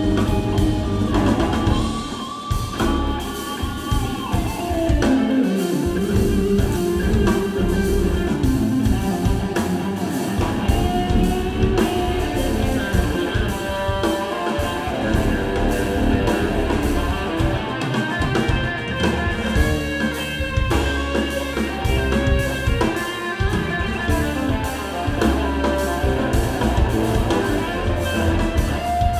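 Live instrumental groove-rock trio playing: an electric guitar leads over an electric bass and a drum kit, with no vocals.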